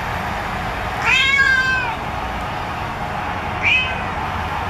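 Cat meows played through a phone's small speaker: one long meow about a second in, then a short one near the end, over steady background noise.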